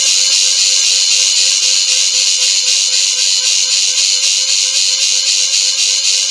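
Loud electronic buzzing sound effect of a sci-fi machine running, pulsing rapidly and evenly with a high hissing edge.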